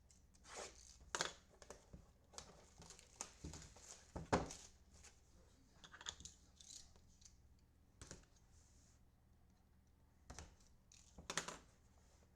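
Wrapping being torn and crinkled as a hobby box of trading cards is opened, with scattered scratchy strokes and light taps of cardboard and packs being handled. The loudest strokes come about four seconds in and near the end.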